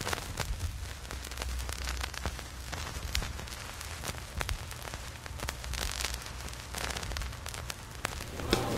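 Crackling static with scattered sharp clicks over a steady low hum.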